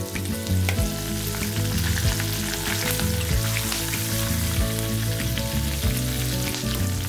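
Fresh curry leaves sizzling hard in hot oil of a tadka (tempering of mustard seeds, cumin and asafoetida) in a nonstick kadhai, with many small pops as the moisture in the leaves spits. A spatula stirs through the oil as they fry.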